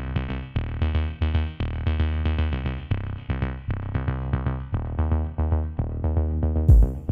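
Electronic background music: synthesizer notes over a steady drum-machine beat. Near the end a louder, sharper full-range hit comes in.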